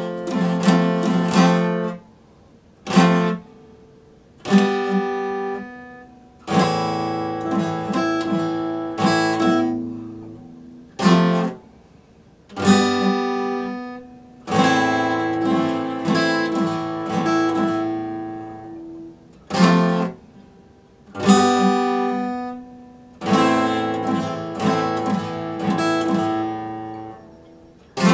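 Epiphone acoustic guitar strummed in phrases. Runs of chords are broken by short pauses, and now and then a single chord is struck and left to ring out.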